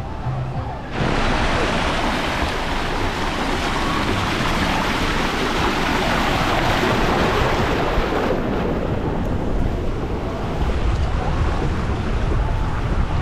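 Water rushing and splashing around a rider sliding down a water slide, heard up close with wind buffeting the microphone. The rushing starts abruptly about a second in and stays loud and steady.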